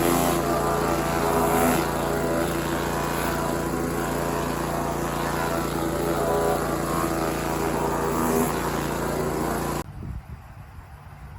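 Petrol pressure washer's Honda engine running steadily with a hiss of spray over it, cutting off suddenly about ten seconds in.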